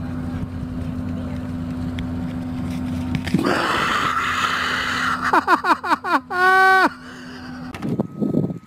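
A person breaks into laughter: a quick run of falling 'ha-ha' laughs, then one long high shriek that cuts off suddenly. Before it there is a steady low drone.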